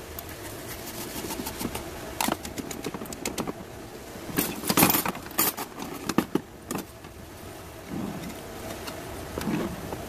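Scattered clicks and rattles of gritty gravel potting mix and metal hand tools being handled during succulent repotting, with a denser cluster about halfway through.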